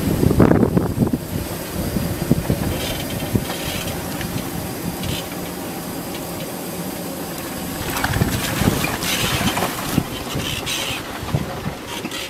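Chevrolet Colorado ZH2 fuel-cell pickup's off-road tyres rolling slowly through muddy water and over rocks. An uneven, noisy rumble without engine tones, louder near the start and again about eight seconds in.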